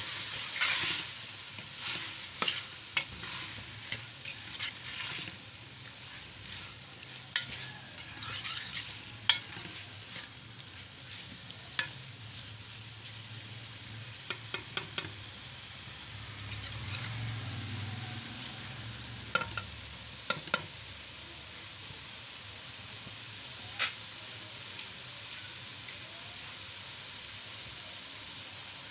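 Onions, tomatoes and green peppers sizzling in a metal wok while they are stirred with a long metal spoon, which clinks sharply against the pan every few seconds, with a quick run of four clinks about halfway through.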